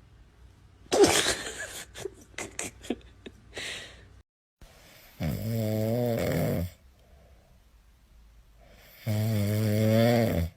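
A few seconds of rustling and sharp knocks, then two long, loud snores about four seconds apart, each lasting about a second and a half with a low buzzing rattle.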